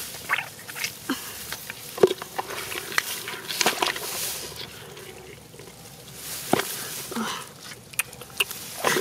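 Shallow muddy water splashing and sloshing as hands grab at catfish, with irregular short wet slaps and plops.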